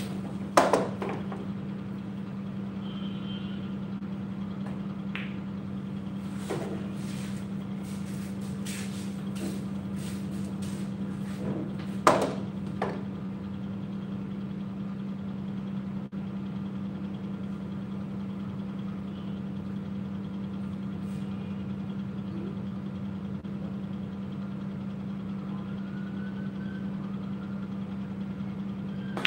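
A steady low mechanical hum in a pool hall, with a few sharp clicks of pool balls and cue, the loudest about twelve seconds in.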